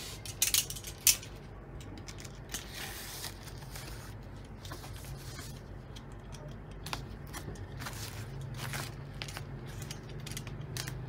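Plastic bag around a mixer crinkling and rustling as it is handled and slit open with a box cutter, with scattered clicks. A few sharp knocks in the first second or so are the loudest sounds.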